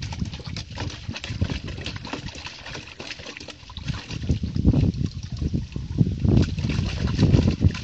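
A puppy splashing and paddling its paws in shallow water in a plastic crate, the water sloshing irregularly, getting louder and busier in the second half.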